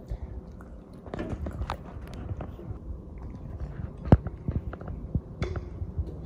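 Baby monkey sucking milk from a plastic feeding bottle: a run of small smacking clicks, with one sharp knock about four seconds in.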